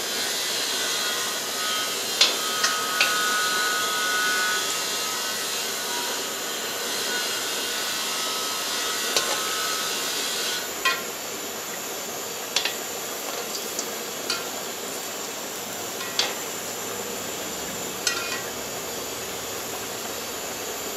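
Balls of phulourie batter frying in hot oil in an aluminium karahi: a steady sizzle, broken by sharp clinks of metal spoons against the pot and bowl, about eight times.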